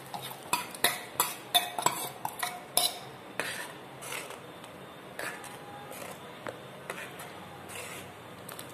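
A spoon clinking and scraping against a cooking pot as ground paste is added and stirred into sambar. Quick clinks crowd the first three seconds, then come more sparsely.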